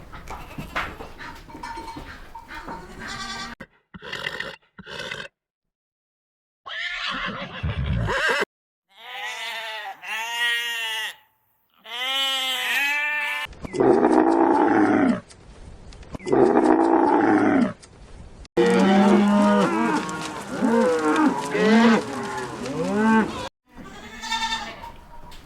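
Farm animals calling in a series of short clips, each holding several repeated calls and each cutting off abruptly into the next.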